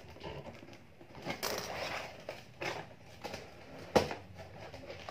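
Cardboard shipping box being opened by hand: packing tape slit and torn, and the cardboard flaps scraping and rustling as they are pulled apart. There is a sharp knock about four seconds in.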